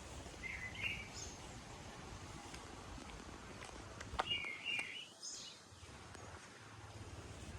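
Outdoor ambience: a steady noisy hiss with a bird calling briefly, once about half a second in and again in a short burst around the middle, and a few faint clicks.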